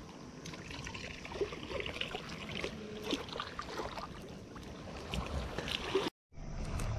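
Small waves washing at the shoreline, with scattered light clicks and rustles as a drawstring cast net and its nylon rope are handled. The sound cuts out for a moment near the end.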